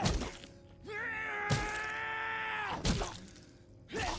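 Anime fight audio: heavy blows landing about every second and a half, the punches of a beating, with a long held pitched sound between them.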